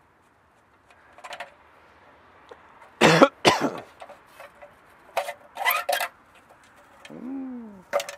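Scraping, knocking and rattling as an old metal AC disconnect box is worked loose and pulled off a brick wall. There are two sharp loud noises about three seconds in, another cluster a couple of seconds later, and a short pitched sound that rises then falls near the end.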